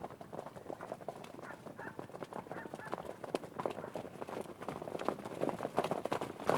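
Hoofbeats of running horses, a fast, dense clatter of hooves that grows louder toward the end as they come closer.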